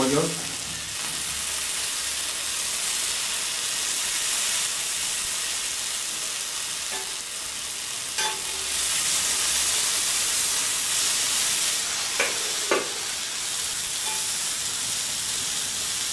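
Bacon-wrapped chicken fillet sizzling on a ribbed grill plate, a steady frying hiss. A few light taps of the metal spatula and fork against the grill sound along the way, two close together near the end.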